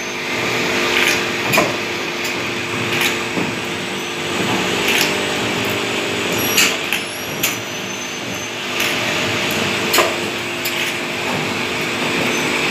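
Juice bottle filling and capping machine running: a steady mechanical hum, broken by sharp clicks at irregular intervals of a second or so.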